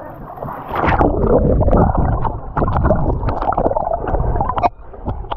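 Water heard from underwater: muffled rushing and gurgling with many small bubble clicks, starting about a second in as the microphone goes under.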